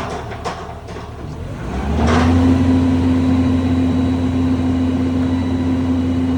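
Heavy construction machine's engine: a few knocks at first, then about two seconds in it rises to a steady, loud, even drone that holds.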